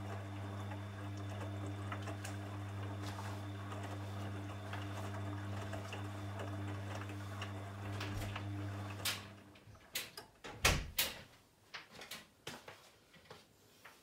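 Bosch VarioPerfect WAQ283S0 washing machine mid-wash: a steady mains hum from one of its electric parts stops about nine and a half seconds in. A run of clicks and knocks follows, the loudest about ten and a half seconds in.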